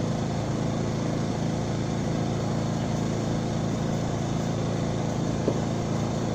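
A small engine running steadily, a constant drone that does not change in pitch or level.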